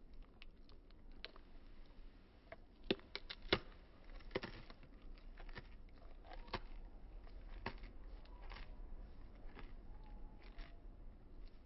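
Raccoon chewing food taken by hand: irregular crisp crunches and clicks of its teeth, loudest about three seconds in, slowed to half speed.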